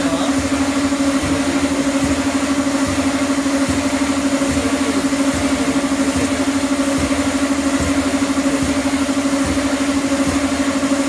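Escalator step-cleaning machine running on moving escalator steps: a loud, steady motor hum with a fast, even pulsing.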